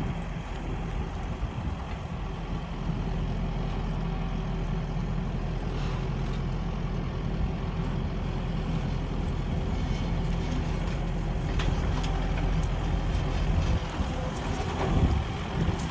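Kubota 75 skid steer's diesel engine running steadily under work, with a few short knocks over the top.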